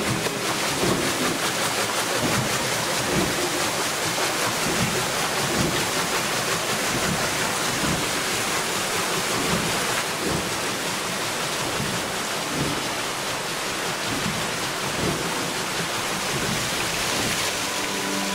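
Water splashing off a wooden water wheel and rushing down its wooden flume: a steady rushing hiss with irregular splashes.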